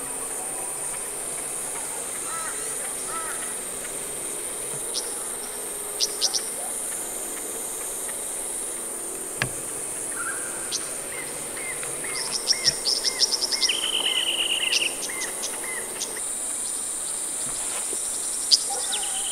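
Steady high-pitched drone of insects, with bird song over it. From about twelve seconds in, a run of quick high ticks, a buzzy note and a string of short upswept notes: the song of male Golden-headed Cisticolas in display flight.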